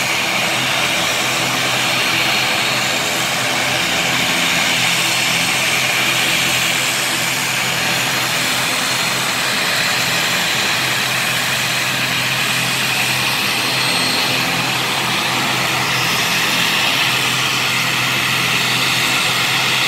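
Twin-turboprop airliner's engines and propellers running steadily as the plane taxis: a loud, even drone with a low hum and a hissing whine above it.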